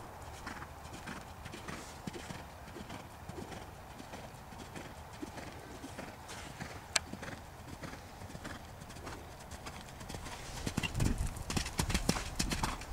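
Hoofbeats of a horse cantering on a sand arena surface, soft and rhythmic, growing clearly louder near the end as the horse passes close by. A single sharp click is heard about seven seconds in.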